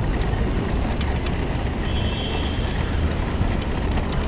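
Wind and road rumble on a bicycle handlebar camera's microphone while riding through city traffic, steady throughout, with a brief high-pitched tone a little after the middle.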